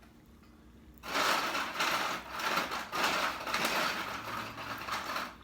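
A cup crackling and crunching as it is handled and squeezed, starting about a second in and lasting about four seconds; the cup may have just cracked.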